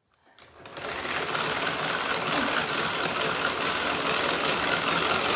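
Hand-cranked Tupperware mixer whirring as its crank is turned fast, churning a liquid crème brûlée custard mix in its jug. It starts about half a second in and within a second settles into a steady mechanical whir.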